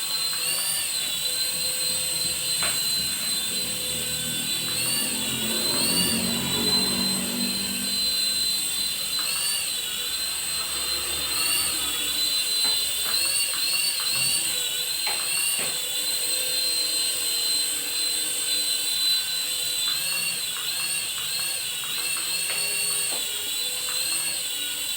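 Toy RC helicopter's small electric motors and rotors spinning: a steady high-pitched whine that dips briefly in pitch now and then as the speed changes, with a few light clicks.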